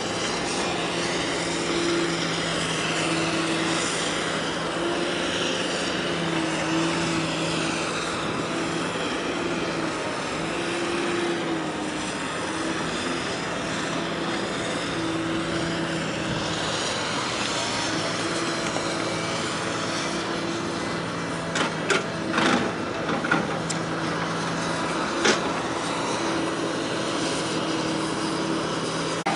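A steady engine drone with a constant low hum and a higher tone that fades in and out, over a wash of noise. A few sharp clicks come about three-quarters of the way through.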